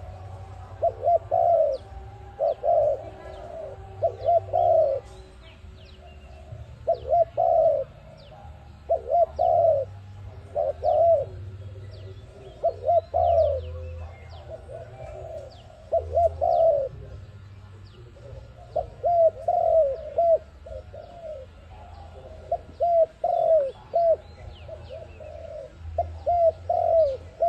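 Dove cooing in repeated short phrases of two to four quick notes, a phrase every second or two. Faint high chirps of small birds and a low hum sit underneath.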